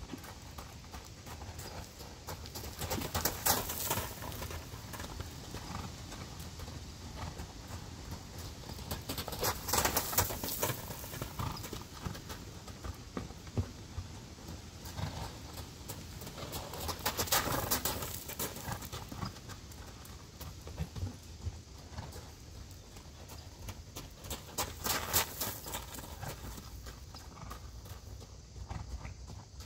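A horse's hooves striking dirt and gravel as it circles on a lunge line. The hoofbeats swell louder about every seven seconds, each time the horse comes round close by.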